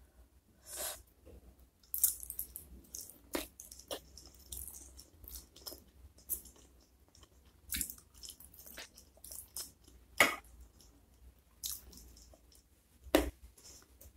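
Close-miked chewing and biting of soft-cooked spicy chicken feet, with irregular sharp wet clicks from the mouth. The loudest come about two, ten and thirteen seconds in, the last with a low thump.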